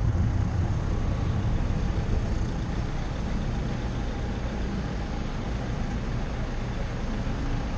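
Car driving slowly on a city street: a steady low rumble of engine and tyres that grows a little quieter over the first few seconds as the car eases off behind traffic.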